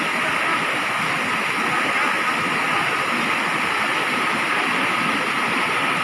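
Steady rush of a waterfall and of whitewater churning over rocks in the stream below it.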